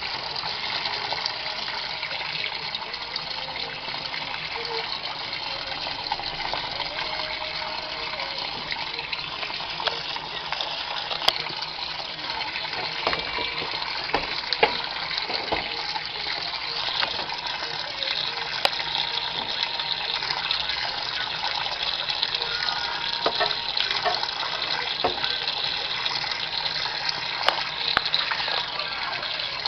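Water gushing steadily into the drum of a Samsung WA89V9 top-loading washing machine as it fills at the start of a wash cycle, with a few scattered sharp clicks.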